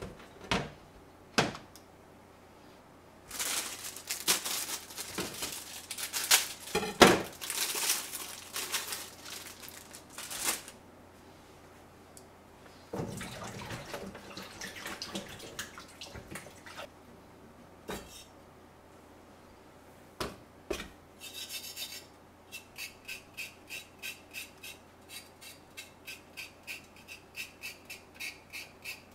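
Kitchen work at a stainless steel sink: a wooden cutting board set down with a couple of knocks, then water sloshing in a basin for several seconds as things are rinsed. Near the end, a knife cuts a cabbage core in a plastic tray with steady strokes about twice a second.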